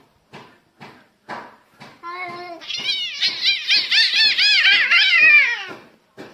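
A domestic cat yowling: a short held call, then a long loud wail that warbles up and down several times a second and slides down in pitch before stopping. Regular short ticks about twice a second run underneath.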